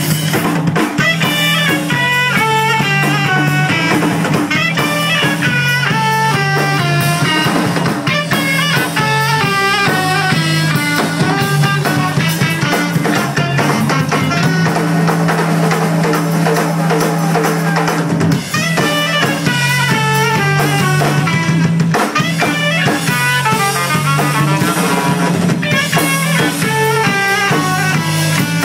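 Live band of saxophone, electric guitar, bass guitar and drum kit playing an instrumental jazz-funk number, with fast melodic runs over a steady bass line and a busy drum groove with snare rimshots.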